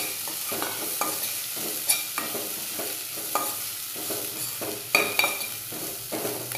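Chopped radish pods (dingri) sizzling in hot oil in a kadhai while a spatula stirs and scrapes them through the pan. A few sharp knocks of the spatula against the pan ring out: one near the start, one about two seconds in and one about five seconds in.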